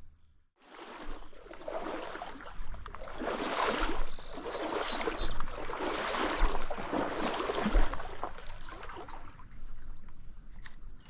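Water sloshing and splashing irregularly as a person wades through a shallow trout stream, loudest in the middle stretch.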